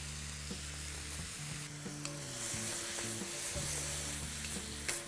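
Onions, carrots and tomatoes sautéing in a wok: a steady sizzle, with a wooden spatula stirring and scraping through them against the pan. Soft background music with long held low notes plays underneath.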